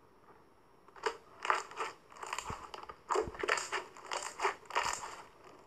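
Clear glitter slime being squeezed and pressed by hand, crackling and popping in short bursts, several a second, starting about a second in.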